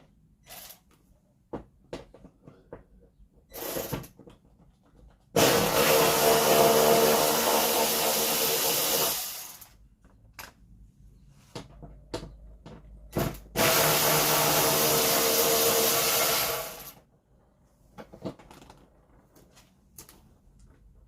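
Power drill running in two bursts of about four seconds each, the motor held at a steady pitch, backing out a stuck fairing screw. Light clicks and knocks of handling come between the bursts.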